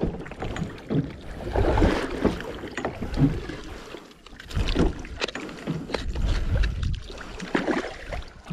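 Water and wind noise aboard a small open fishing boat, with uneven surges and scattered knocks and thumps around the deck.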